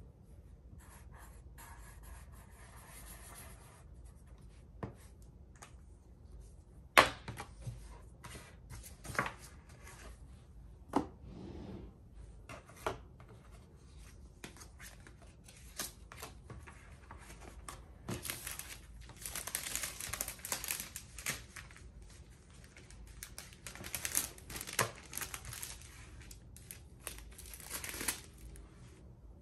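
Paper and card being handled by hand on a desk: rustling, sliding and light tapping, with one sharp tap about seven seconds in and longer spells of crinkly rustling later on.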